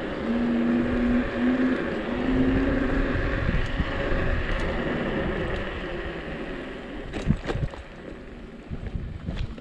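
Inokim Oxo dual-motor electric scooter riding uphill: a motor whine that comes and goes in the first few seconds over the rush of wind and tyre noise. The noise fades after about six seconds as it slows, and a few sharp knocks follow.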